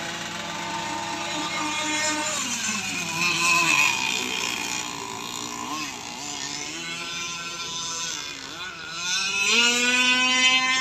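Radio-controlled racing boats running flat out, a high-revving engine whine that falls and rises in pitch as they throttle and pass. It grows louder about four seconds in and again near the end, climbing in pitch.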